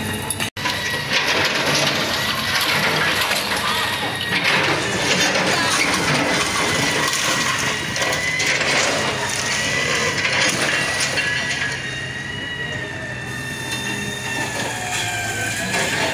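A Kobelco excavator's bucket is breaking down a concrete and brick building. There is continuous crunching and cracking as the walls and slab give way and rubble falls, over a steady, slightly wavering high whine.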